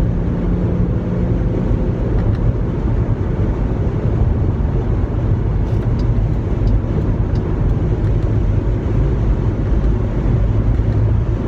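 Inside the cabin of a Jeep Grand Cherokee with the 3.6-litre V6, accelerating hard at highway speed while being paddle-shifted up through the gears: a steady engine drone over heavy road and wind rumble. The engine note drops about two seconds in, at an upshift. The engine is high in the revs but gives little pull, which the driver finds disappointing.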